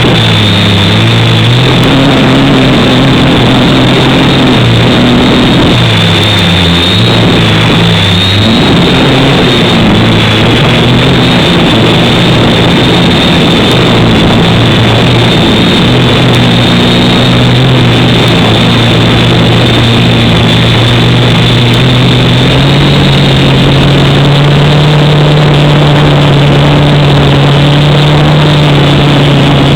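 Quadcopter's electric motors and propellers buzzing continuously, the pitch shifting up and down in steps with throttle changes, with a thin high whine on top.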